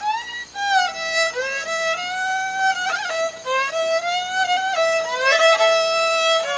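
Background music: a solo violin plays a slow melody, sliding between notes and holding a long note near the end.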